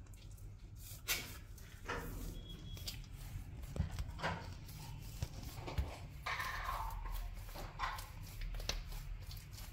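Soft yeast dough being kneaded by hand on a stone countertop: faint, irregular pats and squishes, over a low steady hum.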